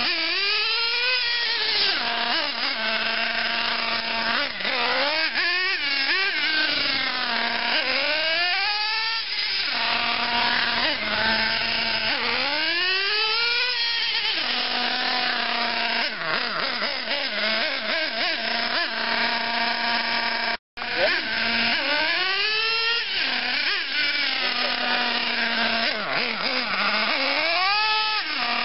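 LRP .28 two-stroke nitro engine of a Team Losi Aftershock RC truck revving up and down in repeated bursts as it is driven, dropping back to a steady idle between runs. The sound cuts out for an instant about two-thirds of the way through.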